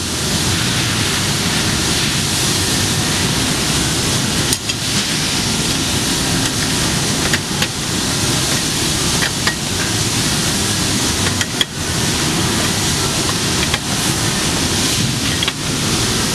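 A steady rushing noise runs throughout. Over it come about five sharp metallic clicks, a couple of seconds apart, as wrenches tighten the clamp bolts on a pre-insulated pipe shoe.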